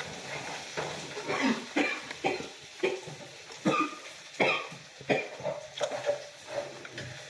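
Close-up mouth sounds of someone eating a messy hot pastrami sandwich: a string of short, irregular, wet chewing and smacking noises, about one every half second to a second.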